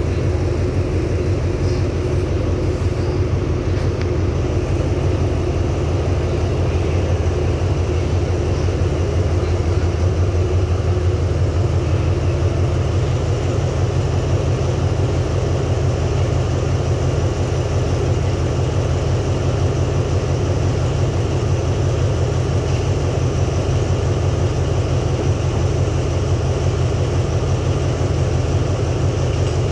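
Diesel locomotive idling with a steady low hum.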